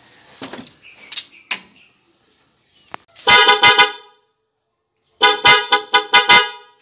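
Newly fitted Denso dual trumpet car horns sounding in two bursts of quick short honks, the second burst longer, as they are tested after installation. They are loud and bright.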